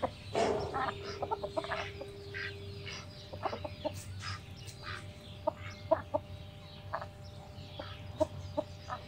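Short animal calls repeating irregularly, mixed with light clicks and knocks; a held tone sounds for the first few seconds.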